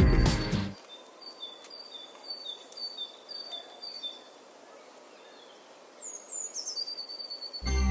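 Small songbirds singing: a high two-note phrase repeated about seven times, then a quick phrase sliding down in pitch near the end.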